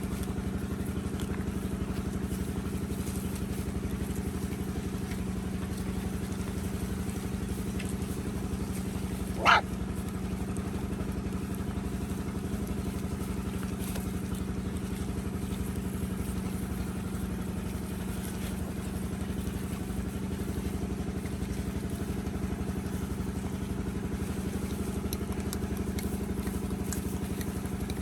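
Steady engine-like drone at a constant pitch, like a small motor idling, with one brief sharp sound about nine and a half seconds in.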